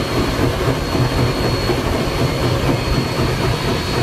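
Cab noise of the Everett Railroad's 2-6-0 steam locomotive No. 11 under way: a steady, loud running rumble, heaviest in the low end, with a thin high-pitched tone held over it.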